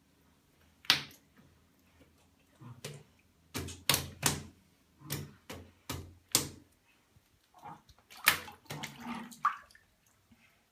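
Baby kicking its legs in a full bathtub, making a string of short water splashes. One comes about a second in, a quick run follows in the middle, and a few more come near the end.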